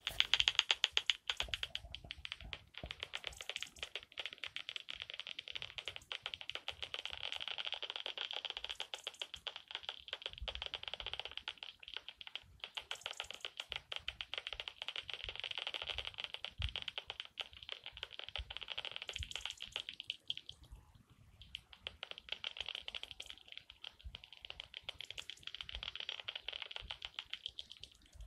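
Heterodyne bat detector tuned to about 28 kHz, turning common serotine bats' echolocation calls into a fast run of dry clicks over a steady hiss. The clicking thins out and drops in level for a couple of seconds about two-thirds of the way through, then picks up again.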